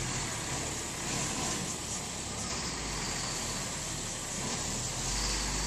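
Dump truck engine running steadily as the truck drives off across grass, apparently towing an aluminium boat.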